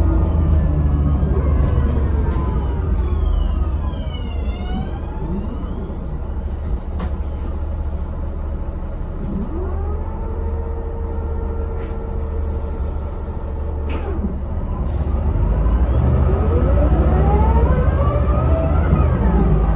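Inside a Van Hool newA360 city bus: the MAN D2866 diesel and ZF gearbox running, their whine falling as the bus slows. A short hiss of air comes about twelve seconds in, then the whine rises again as the bus pulls away near the end.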